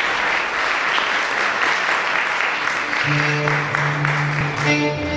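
Audience applauding, with music of sustained low held notes coming in about three seconds in as the clapping dies away.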